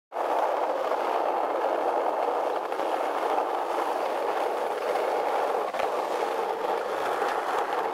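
Skateboard wheels rolling on street asphalt: a steady rolling roar with an occasional faint click.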